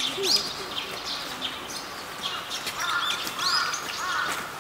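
Small birds chirping: many short high calls throughout, becoming a denser run of quick twittering in the second half.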